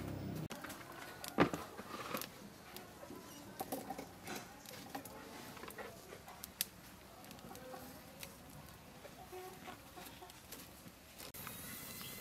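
A wood fire in a clay stove crackling with scattered faint pops as it chars a cow leg on a wire grill, with one sharp knock about a second and a half in. Chickens cluck in the background.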